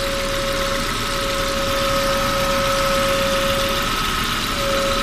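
Audi A4 B5 1.8T AEB turbo four-cylinder idling with a strange hum over the engine noise, coming from a failed crankcase ventilation (PCV) valve housing. The hum drops out briefly about a second in and again near the end.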